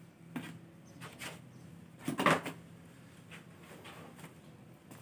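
A few light knocks and clacks of hard objects being handled, the loudest a little over two seconds in, over a faint steady low hum.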